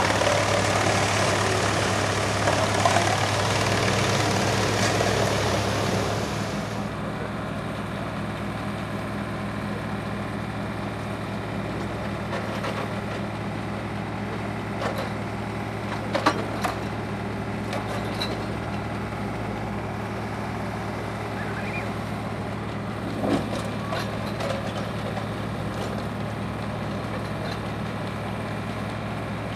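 Tractor-driven wood chipper shredding logs, a loud dense grinding noise over a steady engine hum, which stops abruptly after about six seconds. The engine runs on steadily after that, with a couple of sharp knocks later on.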